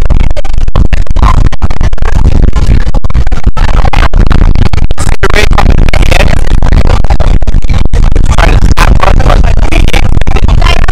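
Loud background music with heavy bass.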